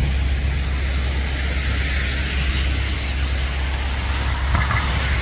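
Road traffic on a wet road: tyre hiss swelling about two seconds in and again near the end, over a steady low rumble.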